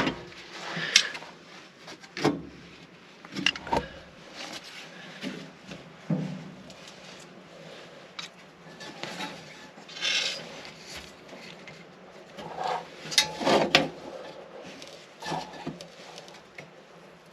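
Irregular knocks, clicks and rubbing from hands handling tools and parts at a workbench, with a louder cluster of knocks about thirteen seconds in.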